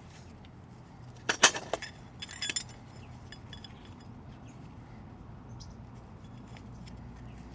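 Small hard parts of a Malossi variator kit clinking and clicking as they are handled and fitted together, with a sharp clink about a second and a half in and a few lighter clicks a second later.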